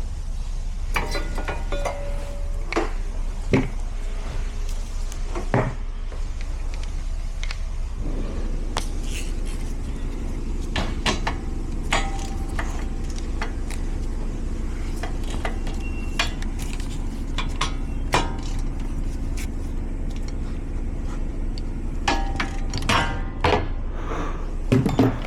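Metallic clinks and knocks, one after another, over a steady low hum; about eight seconds in a steady low drone joins them and carries on underneath.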